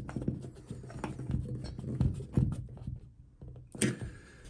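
Screwdriver tightening the small set screw in the bottom of a chrome towel bar's wall foot: irregular faint metal clicks and scrapes, then a sharper click near the end.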